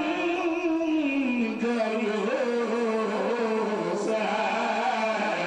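A male voice chanting an Arabic devotional qasida through a microphone, drawn out in long held notes that slide slowly in pitch.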